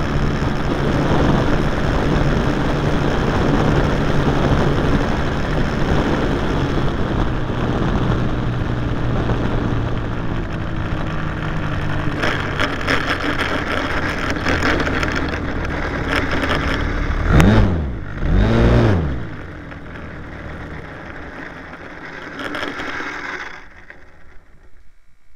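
Onboard sound of a radio-controlled model plane: its motor and rushing air run steadily, with a rattle once it is rolling along the tarmac. About two-thirds of the way through the motor revs up and down twice in quick succession, then it goes much quieter and drops away near the end as the motor stops.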